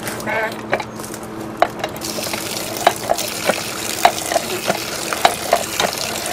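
Cast-iron lever-handle well hand pump being worked by hand, primed and drawing water from a shallow well: from about two seconds in, water gushes steadily from the spout, with sharp knocks from the pump about twice a second as the handle is stroked.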